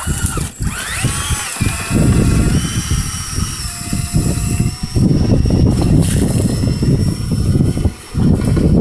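Drill spinning a LintEater rotary brush on its rods inside a dryer vent duct, with a loud continuous rattle of the rods and brush against the duct; it drops out briefly near the end.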